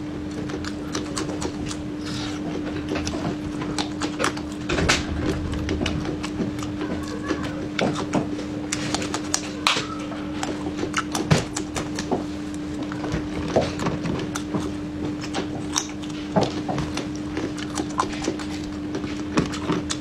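Close-up chewing and crunching of fresh red chili peppers, with wet mouth clicks and smacks at an irregular pace. A steady low hum runs underneath.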